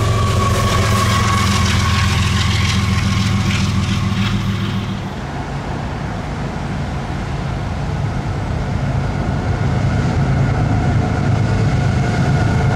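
Diesel locomotive engines running steadily as a train goes by. About five seconds in, the sound changes abruptly to a broader rumble, with faint steady high tones near the end.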